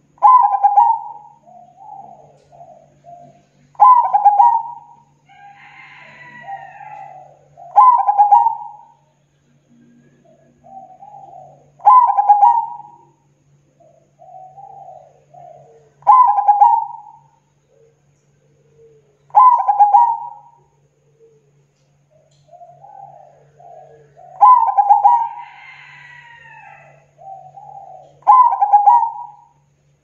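Zebra dove (perkutut) cooing: eight loud, clipped coos about every four seconds, each trailing off into a run of softer rolling notes.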